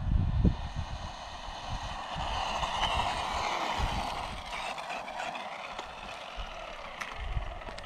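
Tamiya DT-03 Neo Fighter RC buggy's brushed Torque-Tuned 540 motor and gear drive whining as the buggy runs. The whine grows louder toward the middle, then fades as the buggy slows down. There is low buffeting on the microphone in the first half-second and a few sharp clicks near the end.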